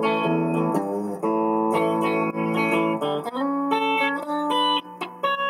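Kramer electric guitar played through an amplifier, picking a country lick in the key of A: single notes plucked and slid up the neck, ringing into each other, with quicker, shorter notes in the second half.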